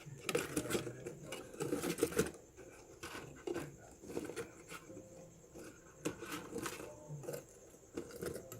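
Loudspeakers and wire being handled and fitted into a cardboard box: irregular rustling, scraping and light knocks of cardboard, densest in the first two seconds, with a few sharp clicks later on.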